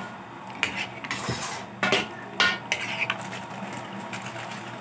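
Metal utensil knocking and scraping against a cooking pan full of chicken adobo, with about five separate clinks spread over a few seconds.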